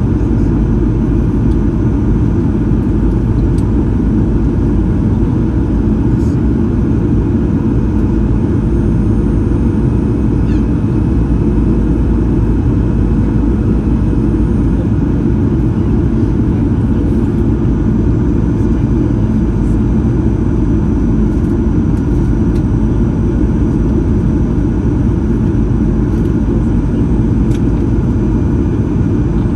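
Steady cabin noise inside a Boeing 737-800 in flight: an even, loud rumble of airflow and its CFM56-7B turbofan engines, with several steady whining tones above it.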